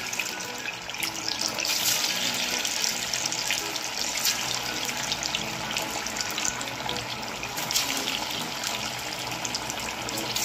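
Pieces of semolina, gram-flour and potato batter deep-frying in hot oil in a kadhai: a steady sizzle with dense crackling.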